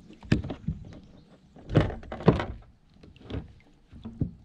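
A series of irregular hollow knocks and thumps of fishing gear against a kayak as the angler reels in a hooked trout, the loudest pair about two seconds in.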